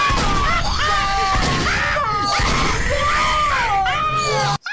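Several cartoon voices screaming over one another, with a few gunshots among them from the mouse character's pistol. The screaming cuts off suddenly just before the end.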